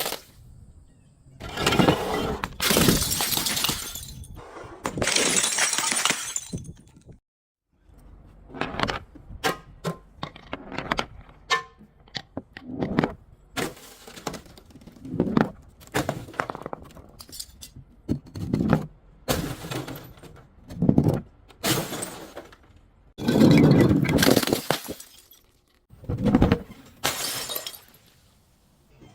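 Glass bottles and other brittle things being smashed and crushed: a long series of sudden breaking and crunching impacts, some single and some in quick clusters, with a brief break about seven seconds in.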